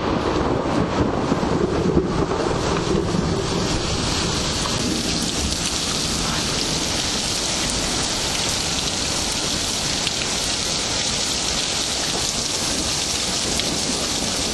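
Thunderstorm: steady heavy rain falling, with a low rumble of thunder in the first few seconds that dies away.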